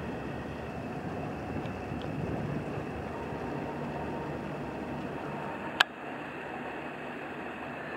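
A passing inland cargo barge, heard as a steady even noise. A single sharp click about six seconds in is the loudest sound.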